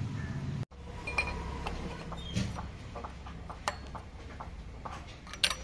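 Scattered metallic clinks and taps of hand tools and engine parts being handled during engine assembly, a dozen or so short hits with a louder clink near the end.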